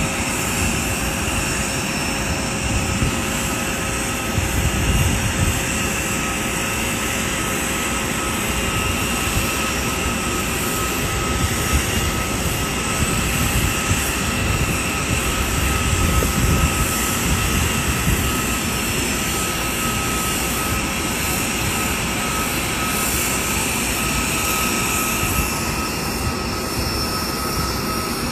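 Air Force One, a VC-25A (Boeing 747), running while parked: a steady jet whine and rush with several constant pitches. The whine holds level throughout, with the highest pitch shifting slightly near the end.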